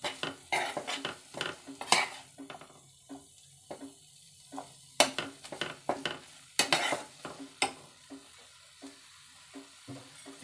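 Steel spatula scraping and knocking against a kadai as a thick pea, onion and masala gravy is stirred and pressed, with a light sizzle from the pan. The strokes come irregularly, with the loudest scrapes about 2, 5 and 7 seconds in.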